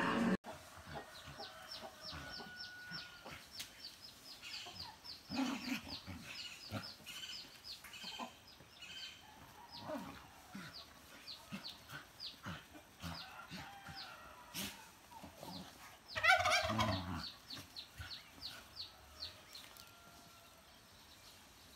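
Yard sounds: a long fast run of short, high chirps with clucking fowl, over the soft scuffles of two dogs wrestling on bare dirt. About sixteen seconds in comes one louder, harsh cry.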